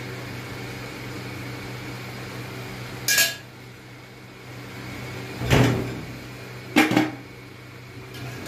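An aluminium lid clanks against a large aluminium cooking pot three times, the last a quick double knock, as it is put on to close the pot for dum cooking. A steady low hum runs underneath.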